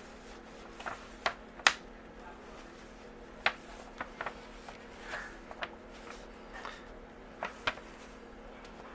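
Scattered light clicks and soft rustles of paper and card packs being handled, over a steady low room hum.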